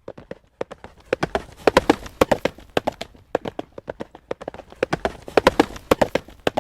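Horse's hooves trotting on a hard road surface: a quick, steady clip-clop of shod hoof strikes that swells louder twice and eases off between.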